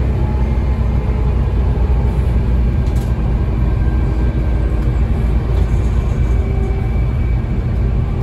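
Volvo D7C 7.3-litre diesel engine of a Volvo B7TL double-decker bus pulling under way, heard inside the passenger saloon as a steady low drone, with a faint whine from the ZF Ecomat automatic gearbox above it. A brief knock about three seconds in.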